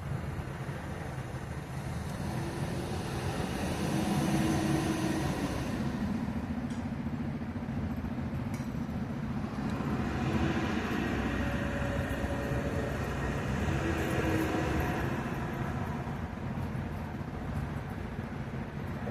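Low, steady rumble of heavy vehicle engines and road traffic, growing louder about four seconds in and again from about ten to fifteen seconds.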